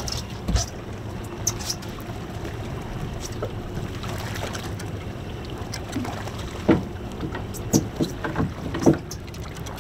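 Steady low rumble of a boat's twin Suzuki outboard motors running under wind and water noise, with several sharp knocks and clatters of gear on the boat, most of them in the second half.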